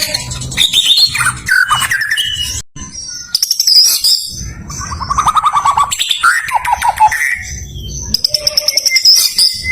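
White-rumped shama singing a varied string of phrases: clear whistles, pitch glides and fast trills, broken by short pauses.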